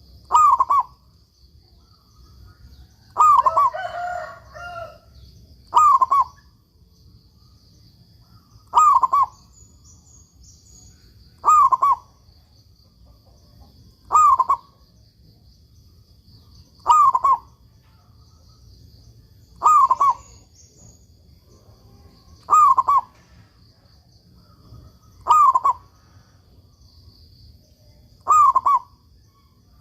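Zebra dove (perkutut) singing its cooing song: short phrases of curved, falling coos repeated steadily, about one every three seconds. A brief rougher sound overlaps the second phrase.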